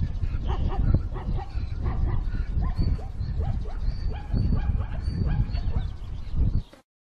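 Animal whimpering and yelping in short high squeals over a low rumbling, from a leopard's kill scene. Everything cuts off suddenly near the end.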